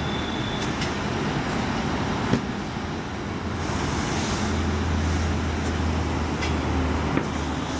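Tyre nitrogen-filling machine running over a steady noisy background, with a low hum coming in about halfway through. The tyres have been emptied and the machine is moving on to the nitrogen fill.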